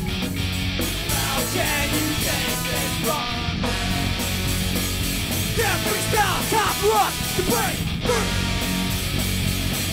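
Live punk-rock band playing loudly: electric guitars, bass and drums, with a horn section of trumpets playing over them. From about halfway through, a run of short bending notes repeats over the band.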